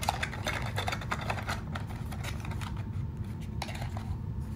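Small plastic clicks and taps as the Ring alarm kit's plug adapters are handled, over a low steady hum, with a sharper click near the end.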